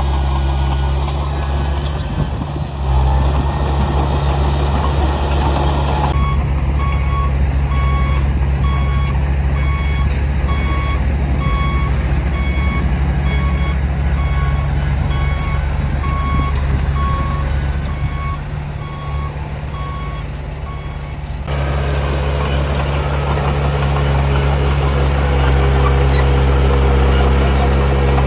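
Heavy diesel earthmoving machinery running steadily, with a reversing alarm beeping at an even pace, about one beep a second, for roughly fifteen seconds in the middle before it stops.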